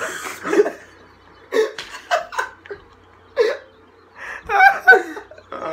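Young men laughing hard, in repeated bursts with short pauses between.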